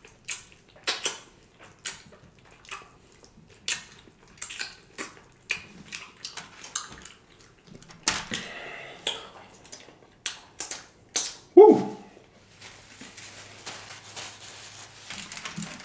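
Close-miked chewing and lip-smacking of someone eating a bone-in ribeye steak by hand: a string of irregular wet clicks and smacks, with a brief hummed 'mm' about two-thirds of the way through. Softer rustling near the end as a paper napkin is rubbed over the fingers.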